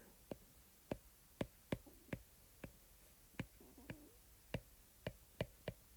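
Calculator keys being tapped: about a dozen sharp, irregularly spaced clicks as a multiplication is keyed in.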